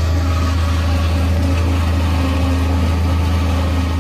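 Massey Ferguson tractor engine under load driving a single-row forage chopper as it cuts and blows maize, a steady low drone heard from inside the tractor cab.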